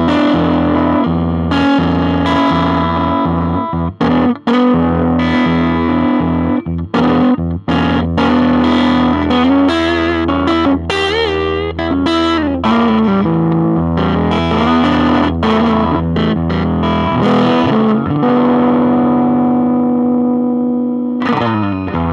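Overdriven electric guitar played through a Marshall Origin 5, a 5-watt all-tube combo with an 8-inch speaker, in high power mode with the boost on. Chords are struck and stopped short, with a run of single notes bent up and down around the middle, and a final chord is cut off near the end.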